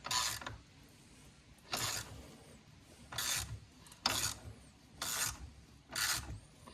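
Hand tool turning a four-wheeler's chain tensioner adjuster: six short strokes, about one a second, as the new chain is drawn tighter.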